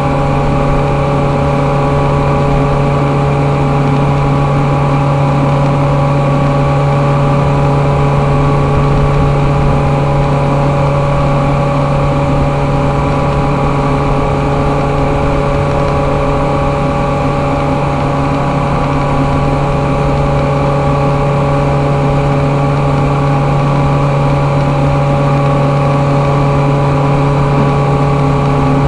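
Steady, loud machine drone from running industrial machinery: a strong low hum with several fixed higher tones above it, unchanging throughout.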